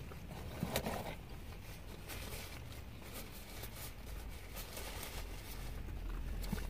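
Quiet van cabin with a low steady rumble and faint scattered clicks and rustles of eating: chewing and food paper being handled. There is a slightly louder rustle about a second in.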